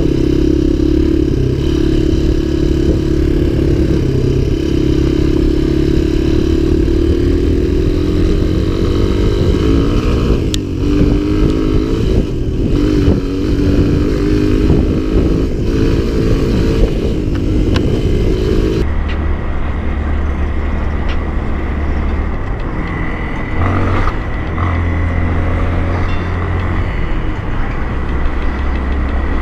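Small four-stroke single-cylinder Honda dirt bike engines running while being ridden on a gravel trail. First an off-road XR200R, its engine pitch rising and falling with the throttle. About two-thirds of the way through the sound cuts abruptly to a CRF230M running at a steadier, lower pitch.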